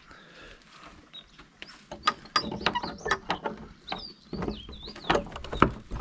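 Old padlocked wooden door being pushed and tugged: the loose planks and the rusty metal hasp and padlock rattle, clink and knock irregularly, with a high squeak in the middle, while the padlock keeps the door shut.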